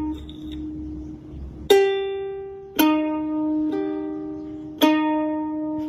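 Background music on a plucked string instrument: after a short pause, four single notes are plucked about a second apart, each ringing on and slowly fading.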